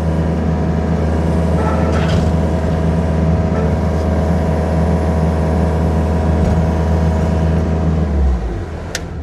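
Skid steer engine running steadily with a low hum; the engine sound drops away about eight seconds in, followed by a few sharp clicks near the end.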